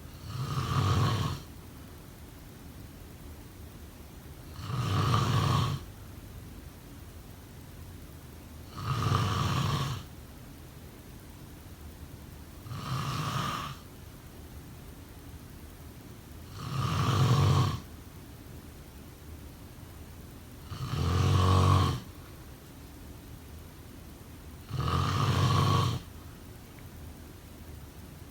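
Sleeper snoring in a slow, regular rhythm: seven snores about four seconds apart, each lasting about a second, the fourth one weaker and shorter.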